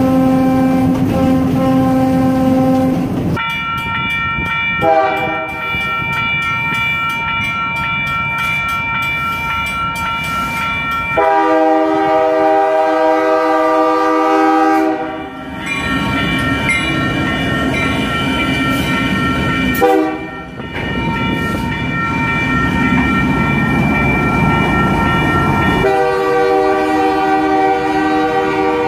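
Diesel freight locomotive horns sounding long multi-note chords, over the rumble of locomotives and cars passing close at a grade crossing. The chord breaks off and changes pitch abruptly several times.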